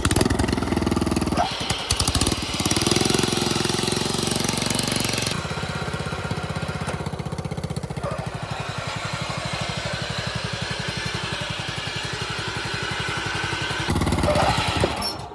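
Riding lawn mower engine running hard, then settling after about five seconds into a steady, rapidly pulsing idle with a loud, ear-bleeding racket from the belt and the enlarged drive pulley. Near the end it picks up again, then stops suddenly.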